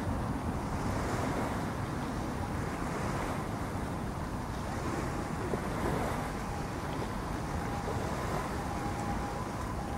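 Sea waves washing against the shore with wind, a steady rush without breaks.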